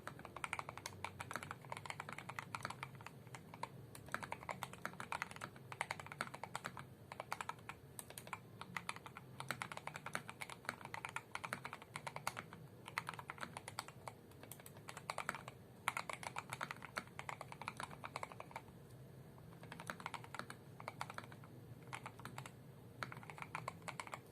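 Typing on an Attack Shark K98 mechanical keyboard, modded with foam, a tape mod and stock red linear switches lubed with Krytox 205g0, fitted with PBT XDA keycaps: a fast, continuous run of keystroke clacks with a brief pause about three-quarters through.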